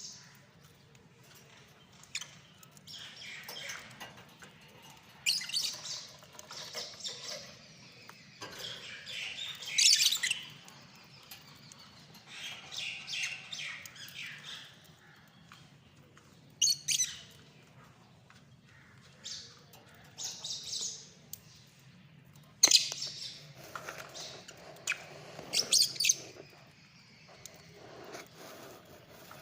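Lovebirds chirping and squawking in irregular bursts of high-pitched calls, with short quiet gaps between them.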